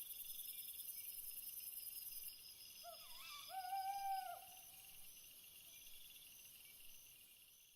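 Faint night ambience of steady, pulsing high-pitched chirring like crickets, which fades after the first couple of seconds. About three seconds in there is a short wavering hoot, then a longer held hoot.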